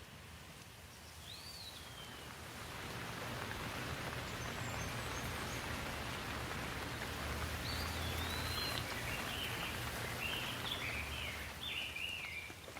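Rain falling, swelling within a few seconds to a steady shower and easing near the end, with a low rumble beneath. A bird calls once near the start and gives a run of short chirps in the second half.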